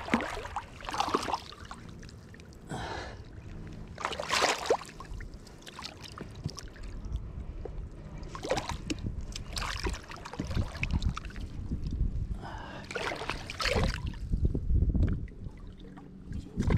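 Shallow water sloshing and splashing around a person's legs as he wades, in irregular bursts over a low rumble, with heavy breathing from the effort.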